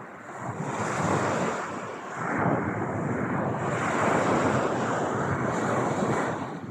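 Surf: waves washing in, a rushing noise that swells and falls back several times.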